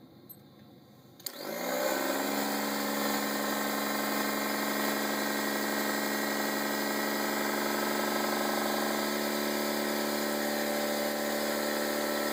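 Small electric air compressor, converted into a vacuum pump, switching on with a click about a second in, spinning up and then running steadily as it draws a vacuum, until it cuts off suddenly near the end. Within a few seconds it has pulled the gauge to about 20 inches of mercury.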